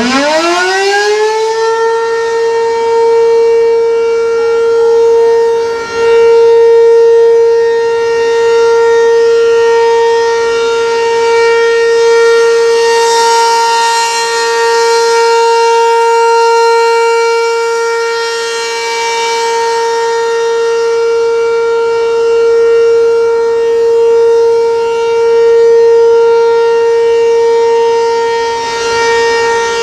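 ACA P-15 outdoor warning siren sounding its steady Alert signal: it finishes winding up in the first second or so, then holds one loud steady tone. The tone slowly swells and fades in loudness every several seconds.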